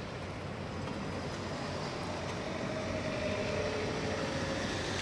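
Steady rumble of distant engines with a faint engine tone that swells through the middle.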